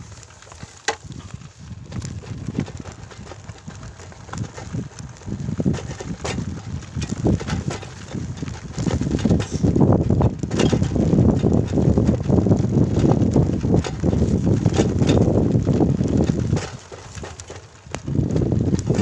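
Wind buffeting the microphone with knocks and rattles during a motorcycle ride down a narrow, bumpy dirt footpath. The rumbling grows loud about halfway through and drops away briefly near the end.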